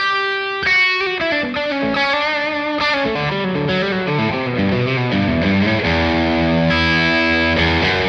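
Electric guitar played through a fuzz pedal, a Fox Echo Chorus echo-chorus pedal and the Safari Pedals Silver Llama vintage amp-sim plugin, sounding fuzzy. A picked single-note line gives way about three seconds in to fuller, sustained chords.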